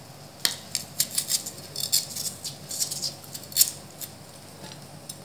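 Kitchen knife peeling the bark-like skin off a piece of cassava: a run of quick, dry scrapes and crackles that lasts about three seconds, then dies down.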